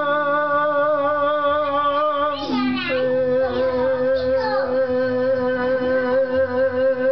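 A man singing two long held notes with vibrato, dropping to a lower note about two and a half seconds in, with acoustic guitar accompaniment.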